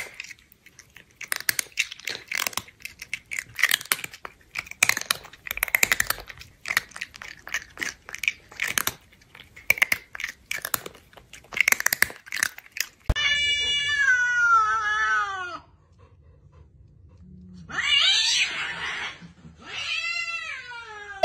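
A cat chewing noisily, a dense run of wet crunching and smacking for about thirteen seconds. Then a long cat meow falling in pitch, and a second drawn-out meow near the end.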